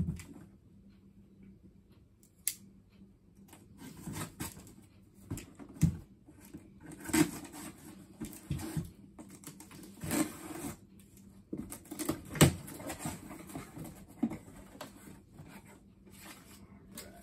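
Cardboard shipping box being opened: a blade slitting the packing tape along the seams, then the flaps pried up and pulled open. Irregular scraping, tape tearing and sharp knocks of cardboard, the loudest knock about twelve seconds in.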